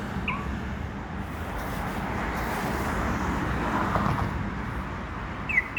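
Steady outdoor background noise with a low road-traffic rumble. There is a short high chirp just after the start and two more near the end.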